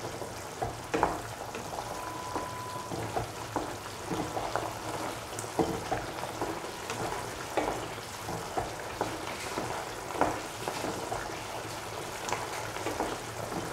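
Bottle gourd and tomato stew in water and oil sizzling and bubbling in a pan as it is brought to the boil. A spatula knocks and scrapes against the pan at irregular moments.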